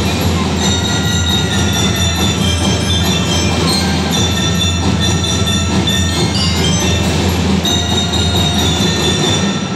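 School marching band playing, with mallet-struck bells ringing over steady drumming; the music stops just before the end.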